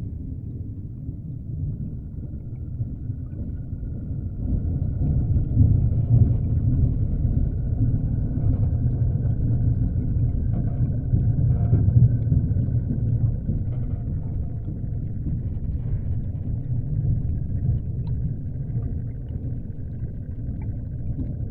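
Underwater ambience: a steady low rumble that swells for a while in the middle, with a faint thin whine held above it and a few faint ticks.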